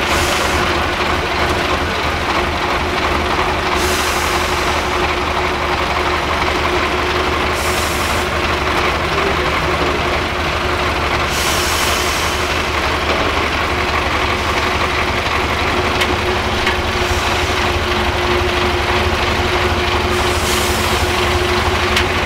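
Diesel engine of a 6x6 trial truck running steadily at low revs as the truck creeps down a steep dirt slope, with several short hisses of air over it.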